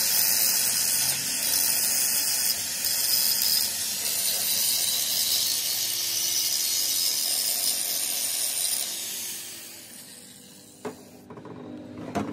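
Electric angle grinder with a sanding disc grinding the inside of a cast metal differential housing: a steady high hiss of abrasive on metal. About nine seconds in the grinder is switched off and dies away, followed by two short knocks.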